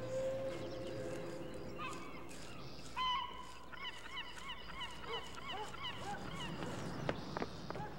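Birds calling in a quick series of pitched calls, about three or four a second, starting about three seconds in. Near the end, running footsteps start.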